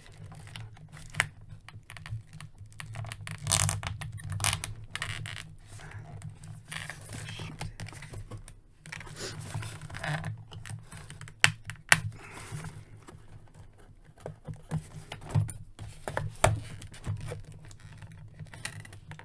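Scissors snipping the thin ties that hold plastic toy parts to a cardboard box insert, amid the rustle and knock of the packaging and plastic pieces being handled. Scattered sharp clicks, a few louder ones about halfway through and again near the end.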